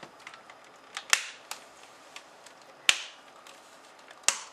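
Plastic screen bezel of a Samsung R480 laptop being pried off by hand, its retaining clips snapping loose in sharp clicks: three loud snaps about a second and a half apart, with a few smaller clicks between them.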